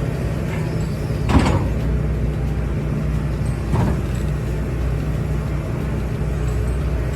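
Excavator's diesel engine running steadily, with two short sharp noises over it, the louder about a second in and another about four seconds in.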